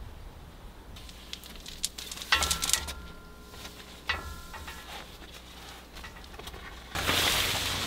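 Camp gear being handled at a tent: scattered clicks and rustles, with two short bursts of ringing metallic clinks about two and four seconds in. Near the end a louder, steady rushing noise sets in.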